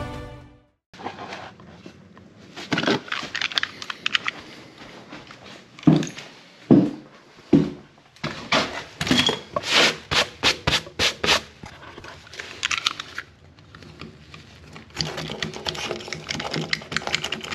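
Utility-knife blade scraping dried residue off a concrete floor in quick strokes, with a few knocks along the way.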